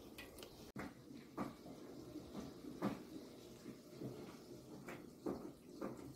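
Thick flour-and-water batter bubbling in a pot: faint, irregular soft plops, roughly one every second or so.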